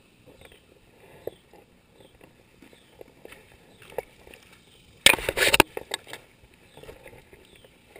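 Handling noise in a kayak: light knocks and rustles of gear and paddle against the boat and camera, with one loud half-second burst of noise about five seconds in.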